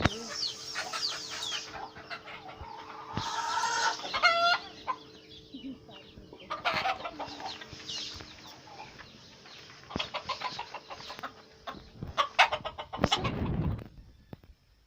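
A flock of chickens clucking and calling, many short calls overlapping, over a steady low hum that stops near the end. A loud low rumble comes about thirteen seconds in.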